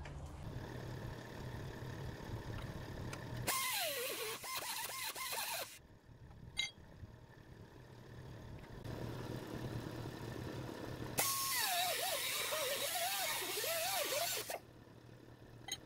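Pneumatic mini cut-off tool with a thin abrasive disc cutting steel in two bursts, one about three and a half seconds in and a longer one about eleven seconds in. In each burst the disc's whine drops and wavers in pitch as it bites into the metal. A steady low hum runs underneath at the start.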